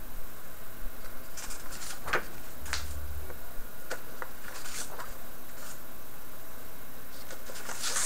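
Memotech MTX computer keyboard keys being pressed one at a time: a handful of separate short key clicks, spaced roughly a second apart, with a soft low thump about three seconds in.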